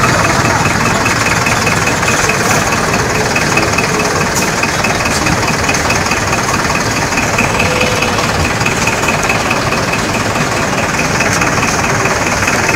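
Loud, steady engine-like running noise with a fast, even rattle running through it.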